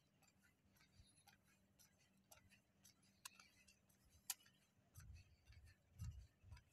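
Near silence on a quiet street, broken by faint scattered clicks, one sharper click about four seconds in, and low rumbling from about five seconds in.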